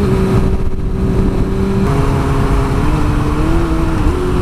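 2005 Suzuki GSX-R600 inline-four with a short aftermarket exhaust running at steady cruising revs, with wind noise on the helmet camera. The engine note changes pitch about two seconds in and rises a little twice after that.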